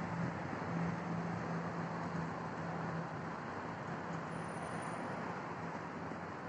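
Steady road and engine noise inside a moving car's cabin, with a low, even hum.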